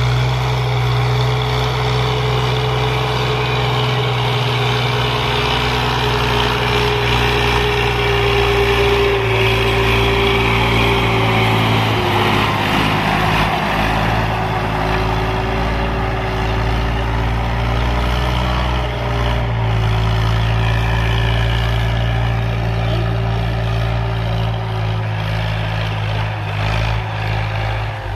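Farm tractor's diesel engine running steadily under load, pulling a cultivator through a flooded, muddy field. Its pitch shifts a little now and then.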